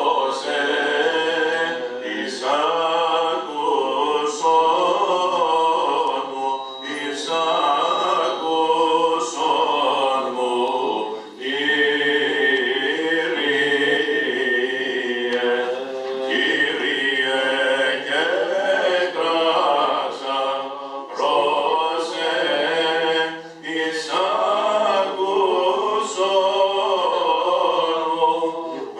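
Byzantine chant: male cantors singing an unaccompanied Orthodox vespers hymn, the melody winding up and down in long, gliding notes.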